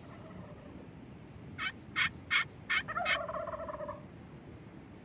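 Wild turkey calling: a quick run of five short notes about a third of a second apart, ending in one longer, lower drawn-out note.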